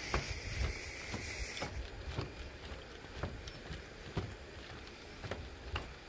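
Footsteps on the wooden planks of a bridge deck, about two steps a second, over a low rumble. A high hiss runs for the first second and a half, then stops.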